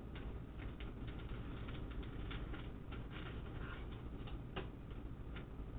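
Plastic keycaps clicking and clattering lightly at irregular intervals as they are sorted through by hand, with one sharper click near the end.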